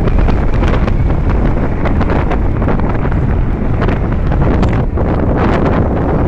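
Wind blasting across the microphone of a moving motorcycle: a loud, steady rush heaviest in the low end, covering the engine and road sound.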